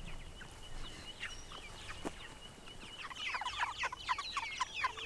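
A flock of meat chickens peeping: many short falling chirps overlapping, getting much busier about three seconds in. Over the first few seconds a thin, steady high tone sits faintly underneath.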